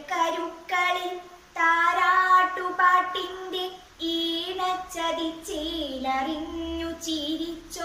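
A girl singing solo and unaccompanied, in sustained phrases with short pauses between them.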